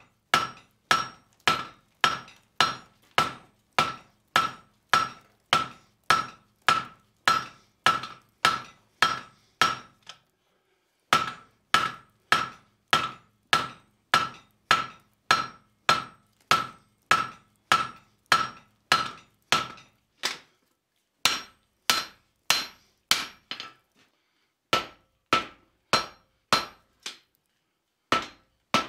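About a 4-pound rounding hammer striking a red-hot 3/8-inch steel bar on the anvil by hand, in a steady rhythm of about two blows a second, each blow ringing. It is drawing out the bar, with short breaks about ten and twenty seconds in.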